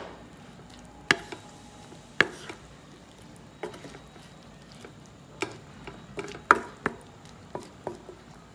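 A spoon stirring mushroom curry in a metal pan, scraping and knocking on the pan with irregular sharp clicks, over a faint sizzle of the cooking gravy.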